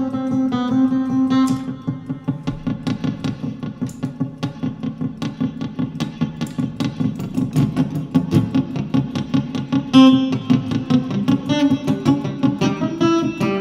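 Acoustic guitar played fingerstyle: a steady run of quickly picked notes over ringing chords, with a louder accented strum about ten seconds in.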